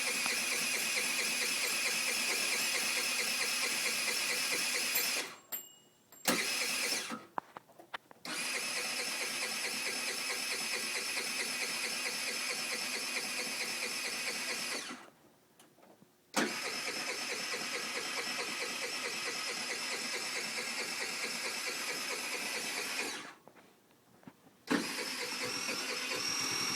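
TaoTao ATM50 50cc scooter engine being cranked by its starter in four long runs of several seconds each, with short pauses between. It turns over without catching because no fuel has reached the carburettor yet on this first start, which is normal.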